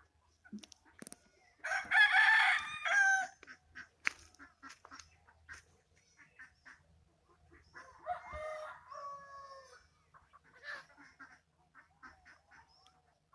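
A rooster crowing twice: a loud crow of about a second and a half about two seconds in, and a fainter crow about eight seconds in.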